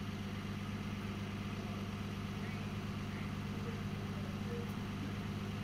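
Street ambience: a steady low hum of traffic.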